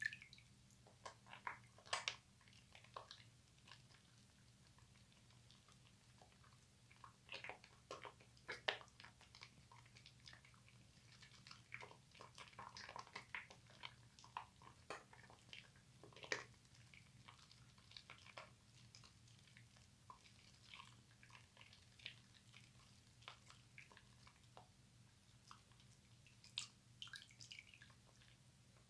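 Wet, soapy hands rubbing and turning a white bar of soap into lather: quiet, irregular squelching and slippery wet clicks that come in clusters, over a low steady hum.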